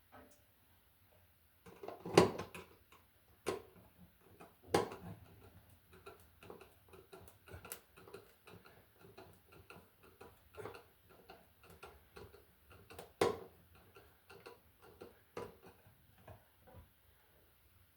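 Light metal clicks and knocks from hand tools working electrical wire and a terminal screw. A few sharper knocks stand out among a run of light ticks, about two a second.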